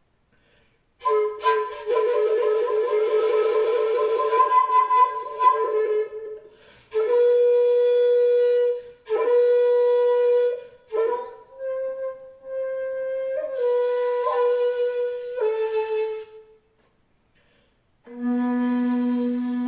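Jinashi shakuhachi, a wide-bore 2.1 bamboo end-blown flute pitched in B, playing slow long-held notes: a breathy, wavering first note, then several steady notes separated by short breaks, a pause, and a lower note near the end.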